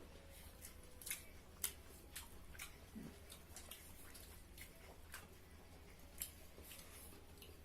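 Faint, irregular clicks and smacks of people eating a meal, over a low steady hum.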